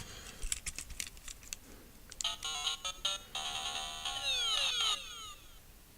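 Several quick clicks, then a video-game-style electronic jingle: stepping beeps followed by a flurry of falling zaps that stop about half a second before the end.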